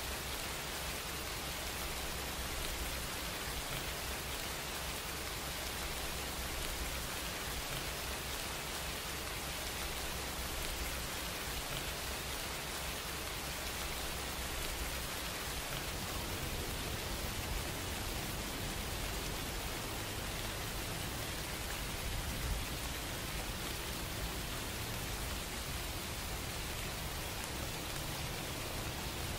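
Steady, even hiss that holds level throughout, with no distinct strokes, knocks or voices in it.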